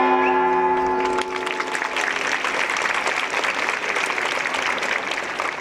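Audience applauding, a dense crackle of clapping hands that builds about a second in, as a held note of music fades out.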